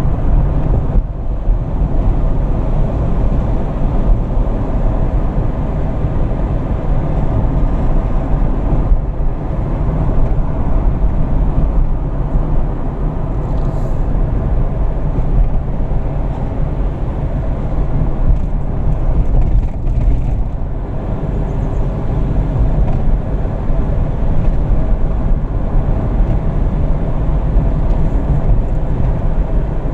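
Steady rumble of a car driving along a road, engine and tyre noise heard from inside the cabin.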